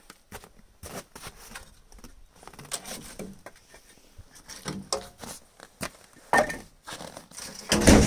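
Scattered knocks and clunks of wood and metal as things are moved about in a storage compartment under the truck's body, with louder thuds about five seconds in, again a little later and near the end.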